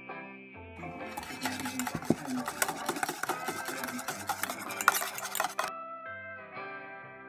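Wire whisk beating egg yolks in an enamel bowl: fast, steady rattling and scraping of the wires against the bowl, stopping near the end. Soft background music with plucked notes plays underneath.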